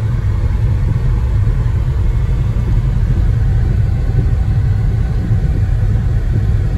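Steady low rumble of a car driving along, engine and tyre noise heard from inside the cabin.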